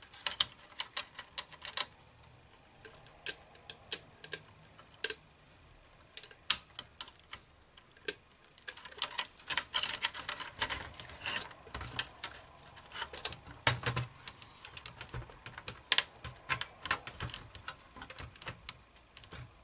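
Irregular clicks, taps and light knocks as a floppy disk drive's metal frame and its cable connectors are handled and seated into a computer's plastic case, in clusters with short pauses between.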